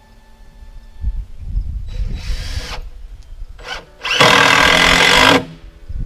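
Cordless screw gun driving screws into wood: a run of about a second, a brief blip, then a longer, louder run near the end, with low knocks from handling the boards in between.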